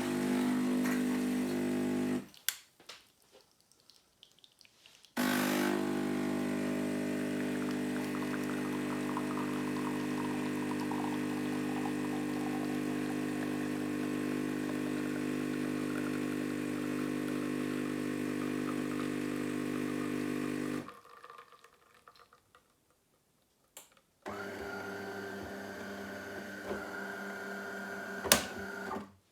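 De'Longhi Magnifica ESAM4200.S bean-to-cup coffee machine working through a cycle. A short buzz is followed by a pause, then a steady buzz lasting about sixteen seconds. After another pause comes a different, higher-pitched whir for about five seconds.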